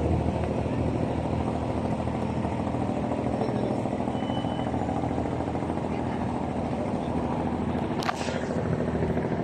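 Diesel engine of an abra (wooden water taxi) running steadily at idle, a low even throb, with a single sharp click about eight seconds in.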